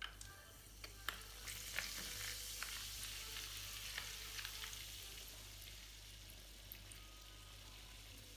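Coca-Cola fizzing up out of an opened can as Mentos set off the foaming: a few light clicks in the first two seconds, then a crackling hiss of bursting bubbles that builds about a second and a half in and slowly dies down.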